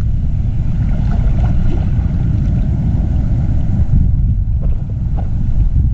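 Steady low rumble of wind buffeting the camera microphone, mixed with the wash of surf.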